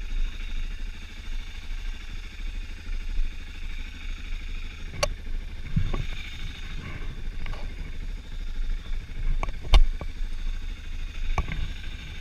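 BMW F650GS Dakar's single-cylinder engine idling steadily, with a few sharp clicks and knocks from handling the bike about halfway through and near the end.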